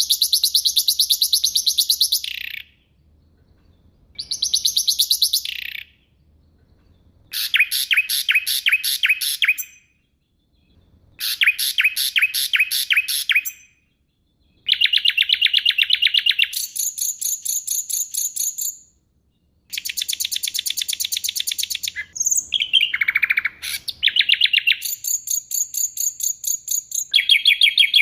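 Songbird singing in rapid runs of sharp, high-pitched repeated notes, each phrase lasting two to three seconds with short pauses between them.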